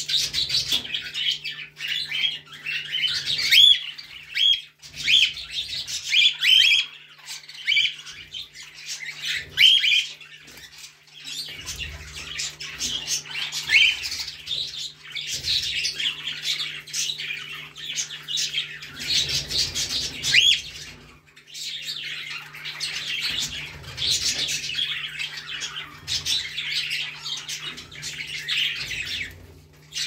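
Cockatiels chirping and squawking almost without pause. The first ten seconds are mostly short, sharp rising chirps; after that comes denser, harsher chatter, with brief lulls about a third and two thirds of the way through.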